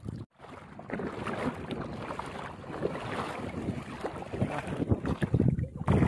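Wind buffeting the microphone in uneven gusts, heavier in the second half. The sound drops out briefly just after the start.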